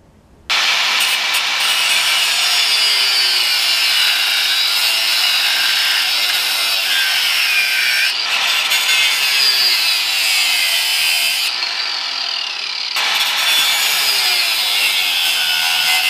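Electric angle grinder grinding down a motorcycle kickstand, taking a little metal off so the lowered bike leans further over on its stand. The grinder starts about half a second in and runs loudly as a continuous rasp, its pitch wandering up and down as the disc works the metal.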